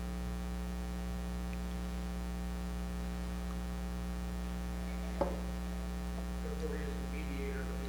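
Steady electrical mains hum from the sound system, with a single short click about five seconds in and a faint, distant voice near the end.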